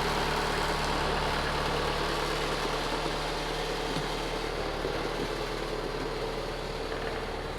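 Tractor engine idling steadily, slowly getting a little quieter.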